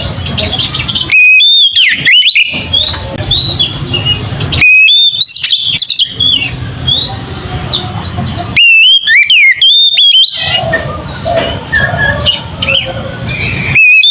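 Oriental magpie-robin (kacer) singing in loud, full song: clear whistled phrases that glide up and down, coming in separate loud bursts about every three and a half seconds. Softer chirping notes fill the gaps between them.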